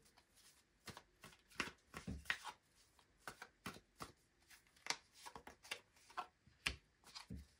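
Tarot deck being shuffled by hand: a run of irregular card rustles and clicks, with a few dull thuds of the deck.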